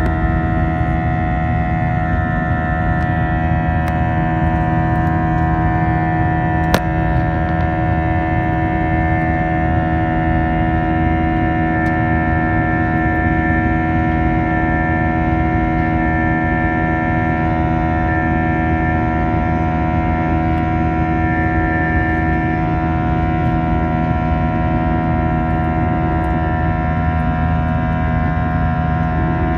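Airbus jet airliner cabin noise in the climb after takeoff: a steady roar of airflow and engines with many steady droning engine tones. There is one sharp click about seven seconds in, and a few of the tones shift near the end.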